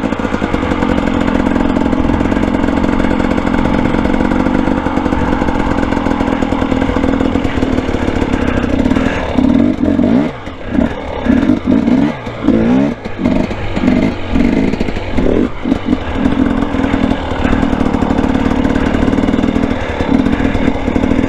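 Dirt bike engine running at steady revs. From about nine seconds to sixteen the throttle is repeatedly chopped and reopened, so the revs drop and climb again in quick dips, then they settle back to steady. This is the throttle being worked to hold slow wheelies.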